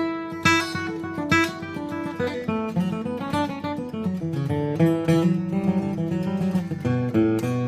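Martin D-18 mahogany dreadnought acoustic guitar with Elixir phosphor bronze medium strings being played: a couple of ringing strummed chords, then a run of picked notes moving through the bass strings.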